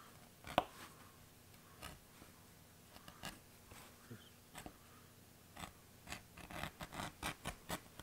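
No. 3 Craftool edge beveler shaving the edge of veg-tan leather. Short scraping strokes come a second or so apart at first, then several a second in the second half.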